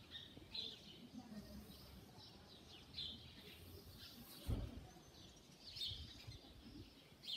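Birds chirping faintly: a few short, high calls spaced out over several seconds. A brief low thump about four and a half seconds in.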